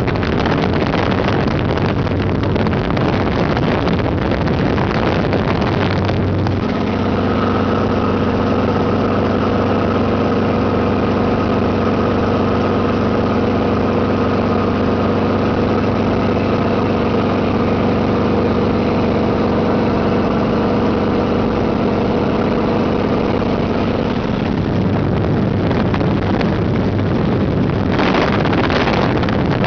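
Helicopter in flight: the fast airstream buffets the microphone held out the open door, giving way about six seconds in to a steady hum of the helicopter's engine and rotor with several fixed tones, before the wind buffeting returns near the end.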